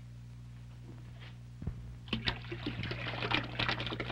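Water splashing and sloshing as small live fish are poured from a container into a glass aquarium tank, starting a little under two seconds in and continuing to the end. A steady low hum runs underneath.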